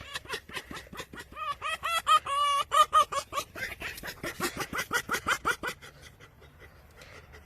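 Chicken clucking in a fast run of short, pitched calls, several a second, which stops about six seconds in.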